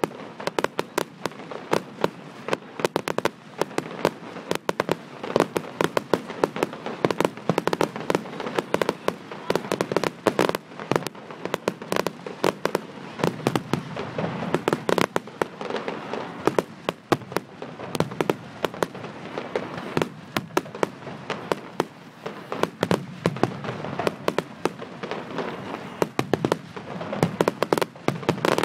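Fireworks display: a dense, irregular barrage of sharp cracks and bangs, several a second, over a continuous crackle.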